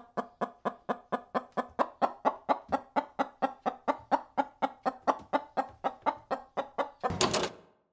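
A chicken clucking in a fast, even series of about four clucks a second, ending with one louder, harsher squawk near the end.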